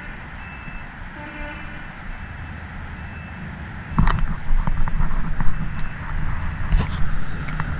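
Uneven low wind rumble on the microphone, with faint short beeps repeating in the first half. About four seconds in it gets louder, with knocks and rustling from handling the rod while walking.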